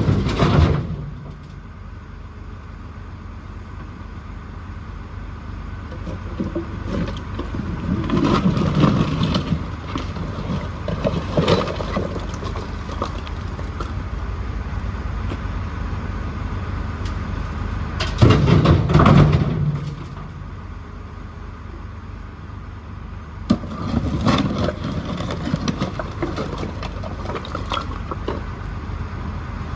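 JCB 4CX backhoe loader's diesel engine running steadily, surging louder and rougher four times as the machine works.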